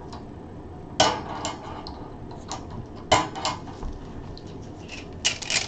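Numbered balls dropped into a container, a few separate hard clacks, then a quick run of rattling clicks near the end as the container is shaken to mix them.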